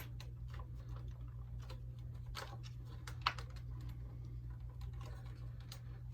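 Scattered small plastic clicks and taps as the parts of a vintage G.I. Joe Conquest X-30 toy jet are handled and clipped together, the sharpest click a little past the middle, over a steady low hum.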